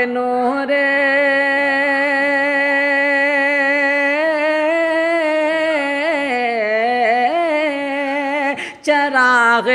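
A man singing a naat unaccompanied, holding one long wavering note for about eight seconds, then a short break for breath before he takes up the next phrase.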